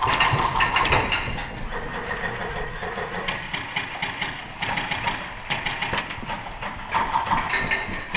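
Airsoft guns firing in rapid clicking bursts, with the whirr of the gearboxes.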